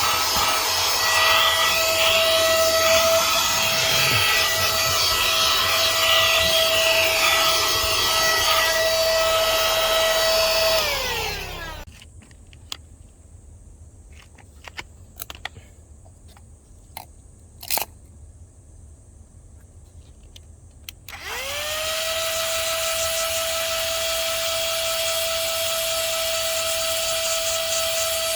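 Small cordless handheld car vacuum (Joas JVC-2010) running with a steady high motor whine; it is switched off about a third of the way in and the whine falls away as the motor spins down. After a few clicks and knocks of handling, it is switched back on and the whine rises quickly to full speed and holds steady.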